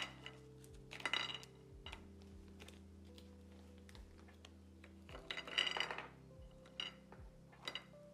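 Hard taralli crackers set down on a ceramic platter, clicking and clattering against the plate and each other in several short bursts, the busiest about five seconds in.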